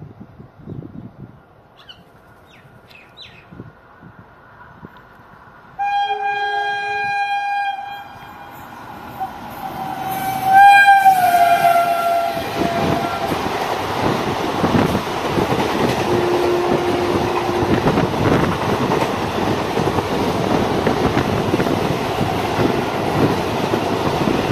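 Indian Railways passenger train coming through at speed: two loud horn blasts, the first about six seconds in and the second a few seconds later, falling slightly in pitch as the train passes. Then the steady rush of the passing coaches, with wheels clattering over the rail joints.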